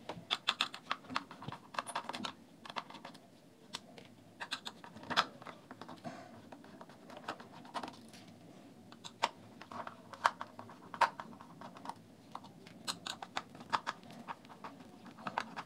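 Irregular light clicks and scrapes of a small screwdriver backing out the screws that hold a speaker driver in the plastic housing of a JBL Charge 3, with small screws set down on the table.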